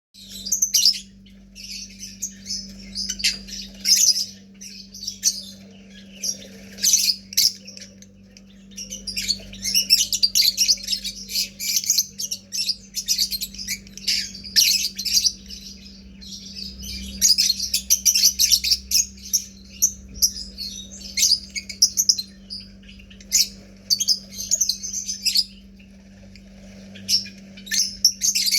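Lovebirds chattering nonstop in shrill chirps and squawks, in quick irregular bursts, over a faint steady low hum.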